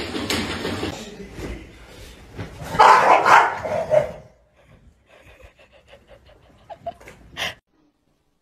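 Dog barking, a loud cluster of barks about three seconds in. Before it, a treadmill belt running under a walking dog.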